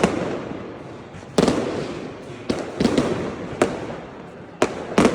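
Fireworks going off: about seven sharp bangs at uneven intervals, roughly one a second, each followed by a fading rumble.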